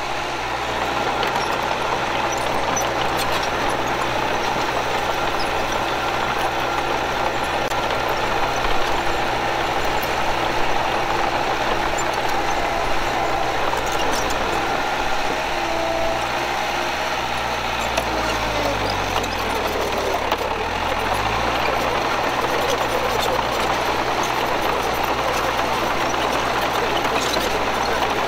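Heavy diesel earthmoving machinery running steadily. The engine note wavers up and down for a few seconds past the midpoint.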